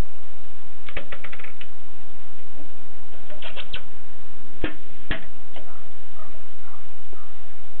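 Alpina typewriter being typed on: a quick run of about six key strikes, a few more a couple of seconds later, then two heavier clacks about half a second apart.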